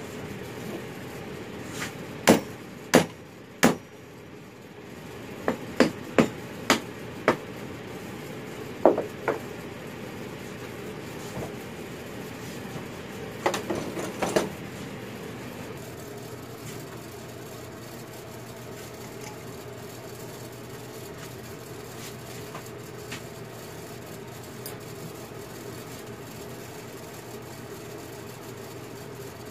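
Sharp metallic knocks from copper being worked at a bench vise. Three strikes come about two-thirds of a second apart, then a run of seven irregular ones, then a short clatter about fourteen seconds in. After that only a steady low hum remains.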